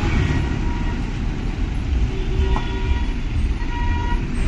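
Road traffic: a continuous low rumble of vehicle engines, with a vehicle horn sounding briefly near the end.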